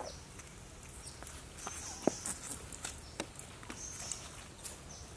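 Scattered light clicks and knocks, about one every second, from a wooden spit with a whole roasted pig on it being handled. Short bursts of faint, high insect chirping come and go behind them.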